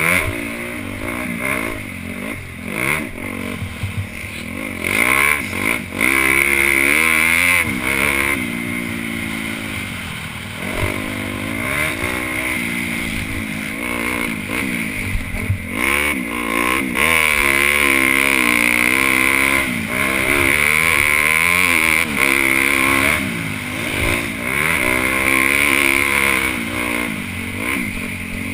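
Honda CRF250 single-cylinder four-stroke motocross engine with a Yoshimura exhaust, revving up and dropping back again and again as the bike is accelerated, shifted and braked around the track. Heard close up from a helmet-mounted camera.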